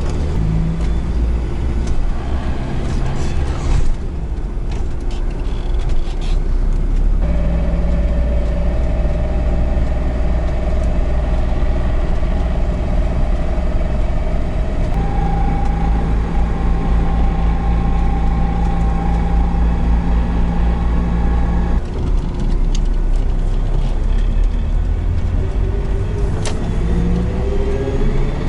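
Homemade GAZ van motorhome driving: a steady engine rumble with a drivetrain whine that holds one pitch for several seconds, then jumps to another, then drops away. Near the end the pitch rises as it accelerates.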